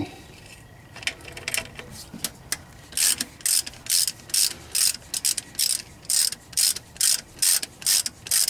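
Hand ratchet wrench clicking as it turns the last nut off an exhaust manifold mount stud. A few light clicks at first, then from about three seconds in a steady run of clicking strokes, about two to three a second.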